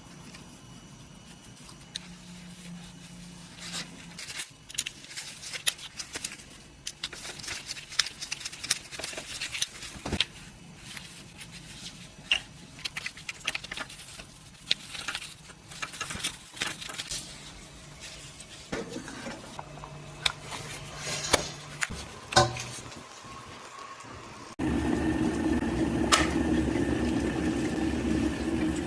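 Small plastic and metal parts clicking and rattling as an electric kettle's plug is handled and assembled. Near the end a steady, louder hum sets in suddenly.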